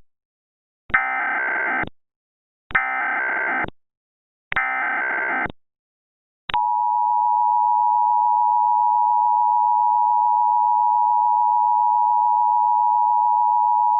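Emergency Alert System SAME header: three identical one-second bursts of warbling digital data tones, then the EAS attention signal, a steady two-tone 853 and 960 Hz alert tone starting about six and a half seconds in. The header bursts mark the start of an emergency alert, here encoding a tornado warning.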